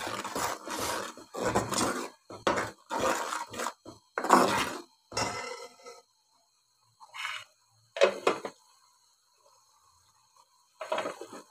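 A metal spoon scraping and knocking against a metal cooking pot, stirring thick spice paste as it fries. The strokes come quickly, two or three a second, for about six seconds. After that come only a few single knocks.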